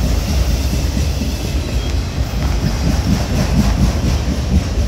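Canadian Pacific freight train's autorack cars rolling past close by: a steady, loud rumble of steel wheels on the rails.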